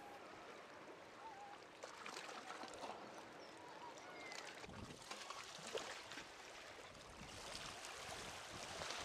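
Faint splashing of a sea kayak's paddle strokes and water lapping against the hull.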